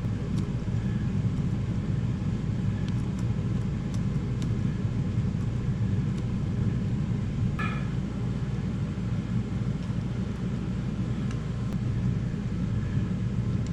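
Steady low machine hum, with a few faint ticks and one short scrape about eight seconds in.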